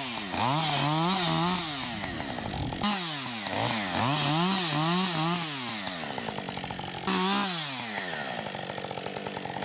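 Chainsaw engine revving up and down over and over, its pitch rising and falling as it cuts, with sudden jumps to a different saw sound about three seconds in and again about seven seconds in.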